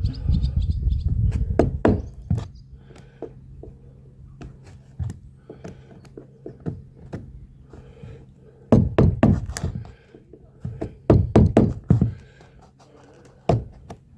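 Irregular clusters of sharp knocks from hand tools working the wooden deck boards, as the old wooden plugs over the screws are knocked and chiselled out. The knocks come in bursts, with quieter gaps between.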